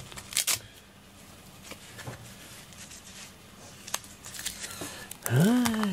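Soft rustling with a sharp click about half a second in, then near the end a cat gives one low meow that rises and falls.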